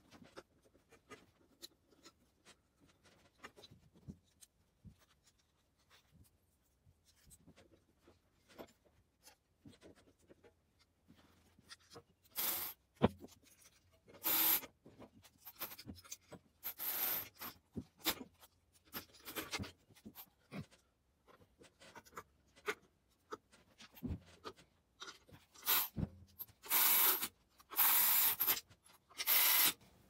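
Hand-tool and parts-handling noises from work on a small ATV engine: scattered light clicks and knocks, with several short rasping rubs in the second half, the longest and loudest near the end.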